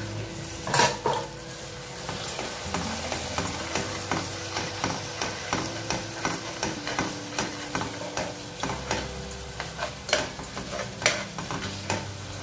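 A steel ladle stirs and scrapes an onion-tomato masala frying in an aluminium kadai, with frequent clinks of metal on metal over a low sizzle. A louder clink comes about a second in, and two more near the end.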